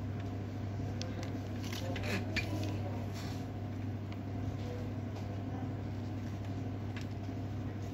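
Steady low hum with a few faint light clicks and scrapes as a soldering iron and jumper wire are worked against a printer power-supply circuit board.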